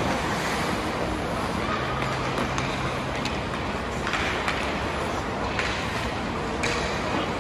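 Ice hockey game noise in a rink: skates scraping on the ice and sticks clacking over a steady background hum, with faint voices.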